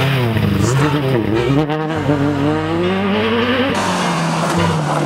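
Citroën rally car engines at full throttle: the C2 revs hard, its pitch dipping and climbing as it lifts and accelerates through the gears. Nearly four seconds in, the sound cuts abruptly to a Citroën Saxo rally car's engine revving as it approaches.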